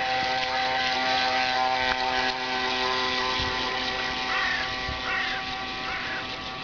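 Small electric motor of an RC model runabout boat, a Kyosho AP-29-type motor, running at a steady speed with a constant multi-tone whine.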